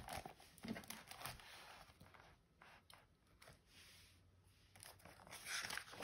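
Faint rustling and soft taps of a hardcover picture book's pages being handled, growing louder near the end as a page is turned.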